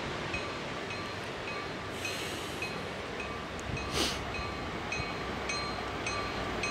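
Distant Amtrak Surfliner passenger train approaching, its low rumble mixed with a steady wash of noise, while a faint high ringing chime repeats about twice a second. A single sharp click sounds about four seconds in.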